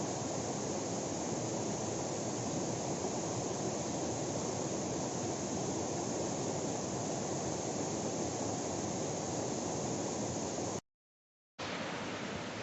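Steady rushing water of a waterfall, an even roar with no change in level. It cuts out completely for under a second near the end, then resumes.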